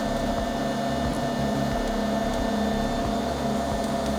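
Robo 3D R1 desktop 3D printer running mid-print at 110% speed, its stepper motors giving a steady mechanical whine with a few held tones over a low, flickering hum as the print head moves.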